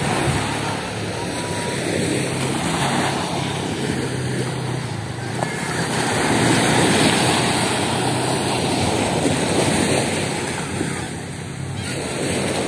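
Sea surf washing onto the beach, with wind buffeting the microphone; the noise swells about halfway through. A low steady hum runs underneath in the first half.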